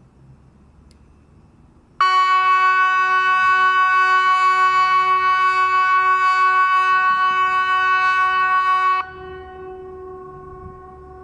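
SiRcom ESP 750 electronic civil-defence siren sounding the Swedish VMA warning tone, known as Hesa Fredrik: one loud, steady blast of about seven seconds at a single pitch with many overtones, which cuts off sharply. A much fainter tone at the same pitch carries on for a few seconds afterwards.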